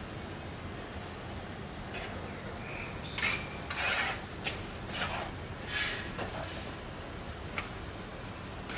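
Steel plastering trowel scraping wet cement mortar out of a bucket and onto a hawk: about six short scrapes over some three seconds, then two sharp ticks near the end, over a steady hiss.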